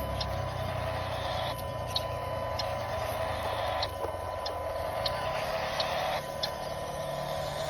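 A radio-controlled car's small electric motor whining, its pitch slowly rising and dropping back suddenly about every two seconds, with scattered light clicks.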